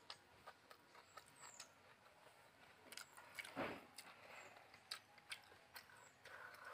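Faint eating sounds: soft clicks and chewing from a person eating rice by hand. A soft longer sound about halfway through, and a sip from a metal tumbler near the end.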